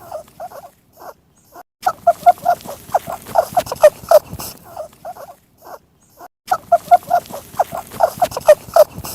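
Rabbit squeaking: rapid strings of short, high squeaks in two bouts of about three seconds each, with a quiet gap of about a second and a half between them.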